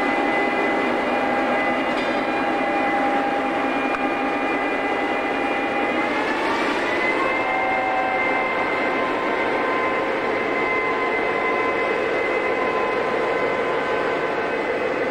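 Diesel locomotive engine running as it hauls a railcar, a steady drone that rises in pitch about halfway through and then holds the higher note as the engine picks up power.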